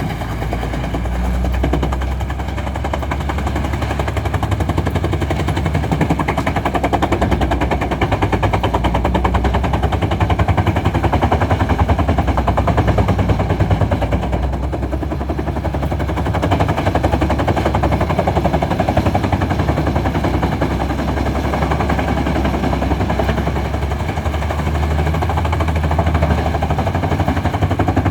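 Wood chipper chipping logs into chips: a continuous fast rattle of cutting over a low diesel engine drone.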